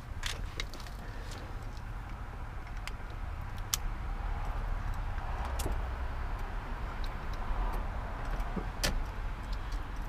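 Scattered sharp clicks and light knocks from handling car parts and wiring, over a steady low rumble.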